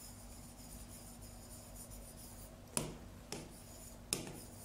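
Pen writing on a board: faint scraping strokes with a few short, sharp taps of the pen tip in the second half, over a faint steady hum.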